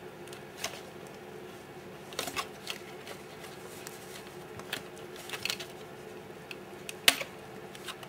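Small plastic clicks and handling noise as fingers work a touch-panel ribbon cable out of its connector on a microwave control board, with the sharpest click about seven seconds in. A faint steady hum runs underneath.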